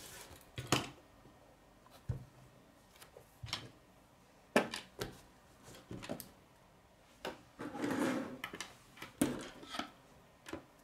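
Plastic K'nex rods, connectors and a wheel clicking and knocking against a wooden tabletop as they are handled, in irregular single knocks, with a longer rubbing rustle about eight seconds in.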